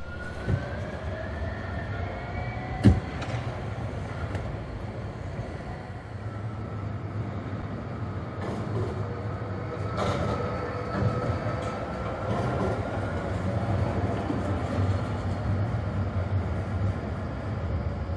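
City trams running through a street junction: a steady rumble of steel wheels on rail with a faint electric whine that rises and falls in pitch. A single sharp click about three seconds in.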